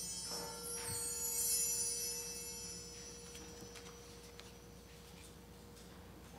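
A struck bell ringing with a steady, pure tone and slowly dying away, swelling again once about a second in. As it fades, soft paper rustling and light clicks.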